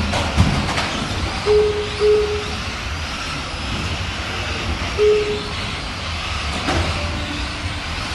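Electric Tamiya Euro Truck RC racing trucks running on the track, a steady mechanical din with a few sharp knocks. Short beeps of one pitch sound three times.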